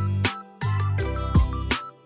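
Background music: a beat of deep bass drum hits under held bass notes and a light melody.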